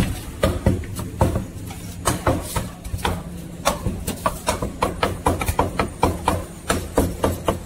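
Cleaver chopping roast meat on a thick round wooden chopping block: a string of sharp, irregular knocks, about two to three a second, some coming in quick runs.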